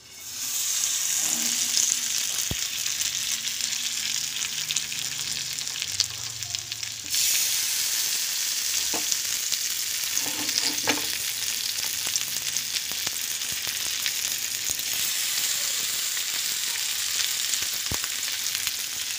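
Bangda (Indian mackerel) sizzling as it shallow-fries in a little hot oil in a flat pan. The sizzle starts as soon as the fish goes in and gets louder about seven seconds in. A few sharp taps sound against it.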